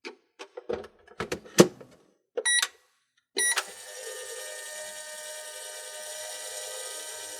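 A microwave door is handled and shut with a run of clicks and knocks. The keypad beeps twice, and then the microwave starts up and runs with a steady hum.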